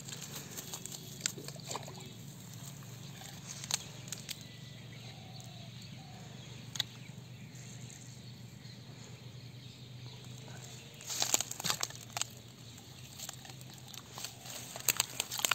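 Quiet outdoor ambience: a steady low hum with scattered sharp clicks and rustles, in two louder clusters about eleven seconds in and near the end.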